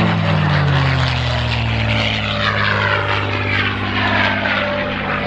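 North American P-51D Mustang's V-12 Merlin engine during a low pass: a loud, steady propeller-engine drone whose pitch falls in the first second as the fighter goes by, then holds lower as it climbs away.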